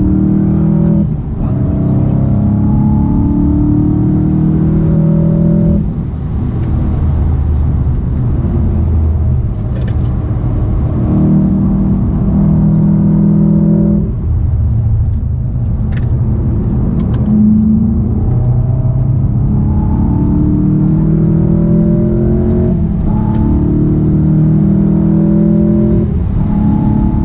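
Golf VII GTI Performance's turbocharged 2.0-litre four-cylinder engine under hard acceleration on track, heard from inside the cabin: the engine note climbs repeatedly and drops sharply several times, as with gear changes and lifts into corners, over steady road and tyre noise.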